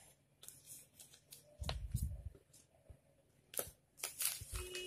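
Laminated picture cards being handled and pressed onto a plastic-sleeved file folder page: a few soft rustles and taps of card and plastic, with a dull thump about two seconds in.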